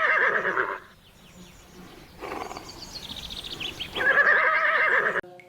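Horse whinnying twice: a trembling neigh at the start and another about four seconds in, with a fainter stretch of whinny between them.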